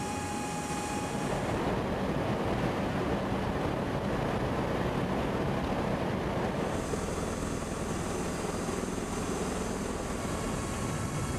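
Steady noise of a tiltrotor aircraft in flight, engine and rotor drone mixed with rushing wind, as heard aboard an MV-22 Osprey. The high hiss drops away about a second and a half in and comes back near seven seconds.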